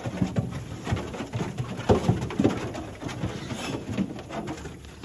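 A group of piglets grunting: many short, low grunts overlapping irregularly, a few louder ones about two seconds in.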